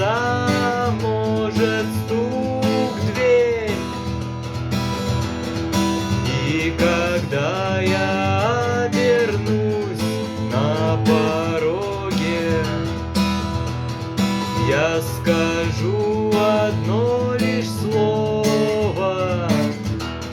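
Music: acoustic guitar strumming chords, with a melody that slides between notes laid over it.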